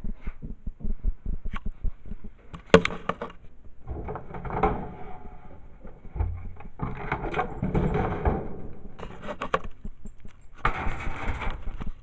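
Handling noise from a handheld camera being moved about: rubbing and rustling in three stretches, with scattered clicks and knocks, a sharp knock about three seconds in being the loudest.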